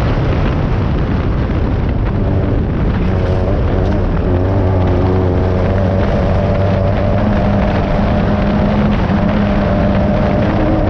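Air-cooled VW engine of a Class 9 off-road race buggy running hard at a fairly steady pitch, heard from inside the car, with constant clatter from the chassis over rough ground.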